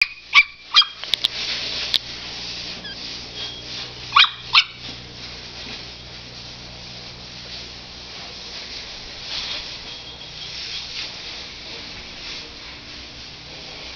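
Cavalier King Charles Spaniel puppies yipping: a quick run of short high yips in the first two seconds and two more about four seconds in, over a faint steady hiss.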